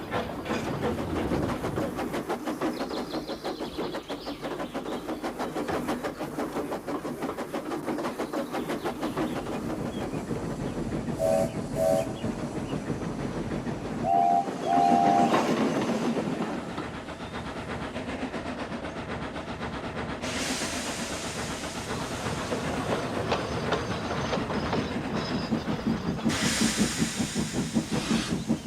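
Steam locomotive running with a fast, steady chuffing. A little before halfway come two short toots on a two-note whistle, followed by two longer toots, and later two bursts of hissing steam.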